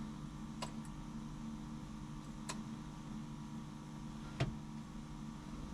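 Three sharp clicks about two seconds apart, the last the loudest, over a steady low hum: a floor-mounted headlight dimmer switch being pressed to switch the beams.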